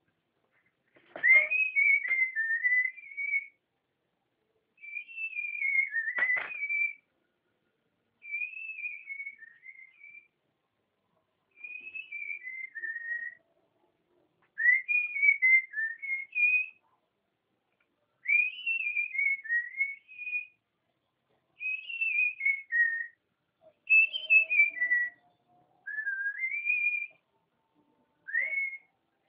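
A person whistling a melody in short phrases whose pitch glides up and down, with a pause between each phrase. Two sharp knocks sound, about a second in and again about six seconds in.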